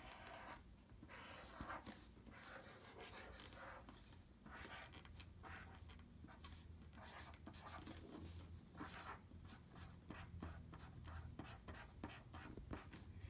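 Felt-tip marker rubbing on paper in many short, irregular strokes as a picture is coloured in; faint and scratchy.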